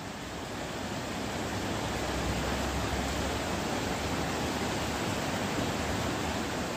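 Steady rush of running water, an even hiss with no pattern, swelling a little over the first couple of seconds.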